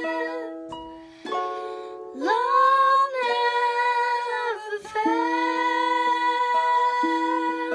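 Small harp plucked as accompaniment to a woman and a girl singing together in long held notes, with a rising vocal slide about two seconds in.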